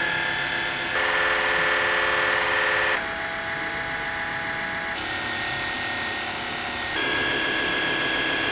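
Cordless water flossers (oral irrigators) running one after another: each unit's small electric pump gives a steady whine, and the pitch and loudness change abruptly every two seconds or so as one flosser gives way to the next. They are loud, measuring about 70 to 75 dB from 30 cm.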